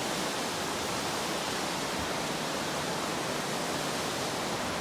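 Waterfall: falling water making a steady, even rush with no change in level.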